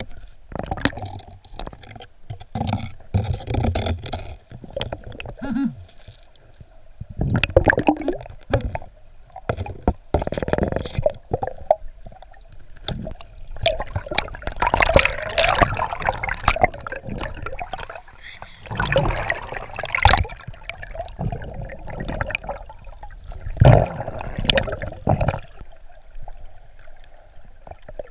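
Underwater water noise picked up by a submerged camera in a river: gurgling and rushing in uneven surges, with scattered sharp knocks and scrapes of rocks and gravel being moved.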